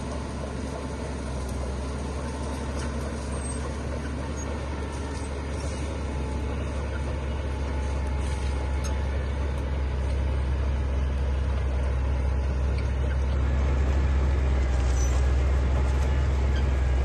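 Heavy diesel construction machinery running with a steady low rumble that slowly grows louder, as if working closer.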